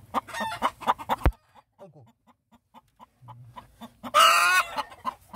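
Broody hen in a straw nest box clucking in a fast run of short clucks, cut off by a sharp knock about a second in. After a quieter stretch of faint clucks, a loud, drawn-out squawk comes about four seconds in: a broody hen's protest at being disturbed on the nest.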